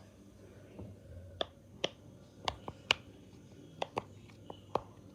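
Silicone pop-it fidget toy, its bubbles pressed in one at a time, giving sharp separate pops about every half second.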